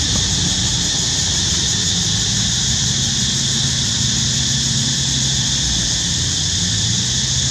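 Steady outdoor background noise: a constant high hiss with a low, even hum beneath it, unchanging throughout.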